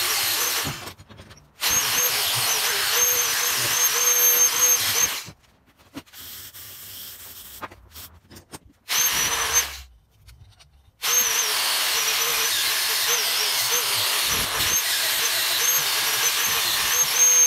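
Handheld angle grinder running under load against the vise's metal parts, stripping rust and old finish, its whine wavering as it bites. It cuts out briefly about a second in, then again for several seconds in the middle, where there is quieter, uneven scraping, before running steadily again.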